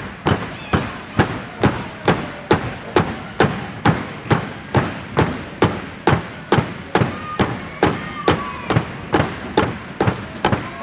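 A crowd beating out a steady rhythm in unison, about two sharp beats a second.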